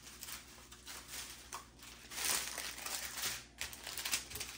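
Small clear plastic bags of diamond painting drills crinkling and rustling irregularly as they are handled and laid out in rows.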